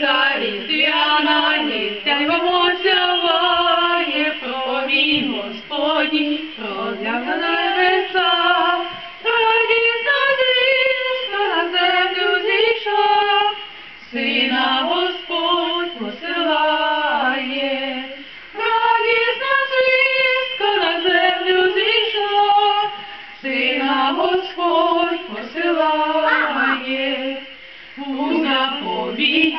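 A woman and two boys singing a Ukrainian Christmas carol (koliadka) together without accompaniment, in sung phrases with brief breaks between them.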